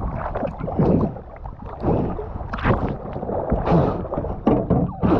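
Choppy water sloshing and splashing around a camera held at the surface, with gurgling bursts and wind on the microphone, as a swimmer reaches the side of a small boat.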